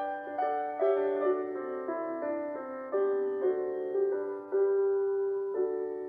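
Background music: a gentle piano melody, its notes struck and left to fade.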